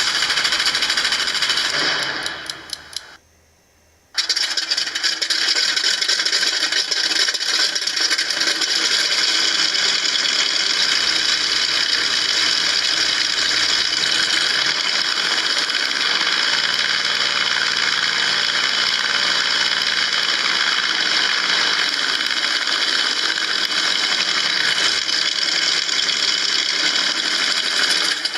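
ESS-AIR V2 electronic engine-sound module playing a simulated P-47 radial aero-engine, driven through a speaker on pink insulation foam board inside the model's motor box. A first burst winds down with a few sputters about two to three seconds in, then after a second's pause the engine sound comes back and runs steadily.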